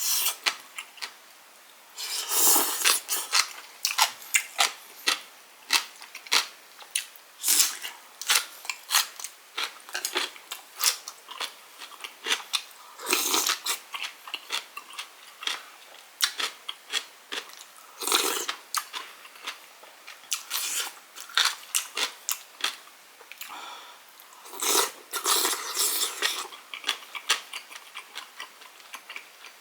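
Close-miked eating sounds from a mukbang of tteokguk: chewing, lip smacks and slurps that come as a run of quick irregular clicks, with louder clusters of bites every few seconds.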